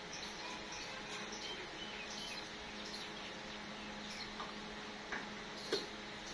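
Outdoor ambience with a steady low hum and scattered faint chirps, then two short sharp chirps about five seconds in, the second one the loudest.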